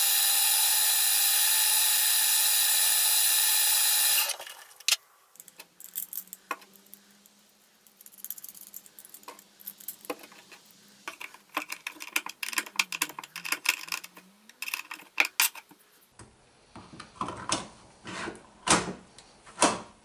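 A metal lathe runs steadily for about four seconds while it turns the heads of small bolts to a countersink, then stops abruptly. After that come scattered small metallic clicks and taps as bolts and screws are handled and fitted into a lock's plate.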